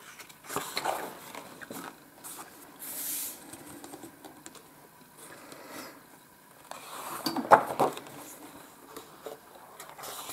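Pages of a spiral-bound colouring book being turned by hand: paper rustling and swishing, with a few sharp taps and clicks as the page is handled, the loudest cluster about seven and a half seconds in.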